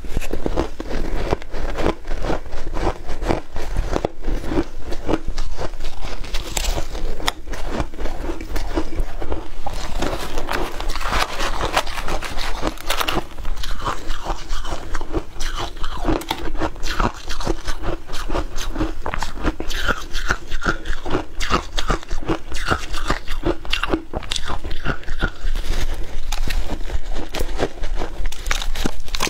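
Crushed ice bitten and chewed by the mouthful: a dense, continuous run of crisp crunches and crackles.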